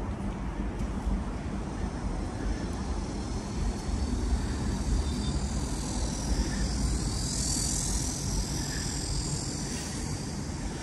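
Steady outdoor rumble, heaviest in the low end, with a faint high hiss that swells in the middle and fades again.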